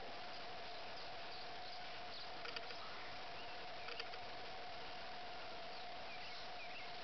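Outdoor background: a steady hiss with a steady, even hum under it, faint high bird chirps, and two brief soft clicks about two and a half and four seconds in.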